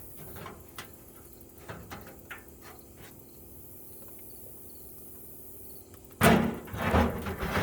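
Handling sounds: a few light clicks and taps, then a loud clatter begins about six seconds in as something is gripped and moved.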